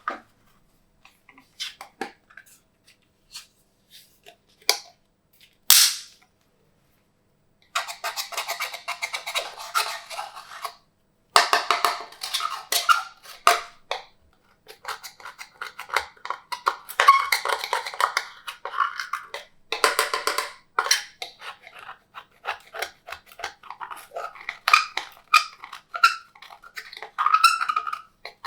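Glossy slime being squished and stretched by hand, making sticky clicking and popping. A few scattered clicks come first, then a dense, continuous crackle starts about eight seconds in.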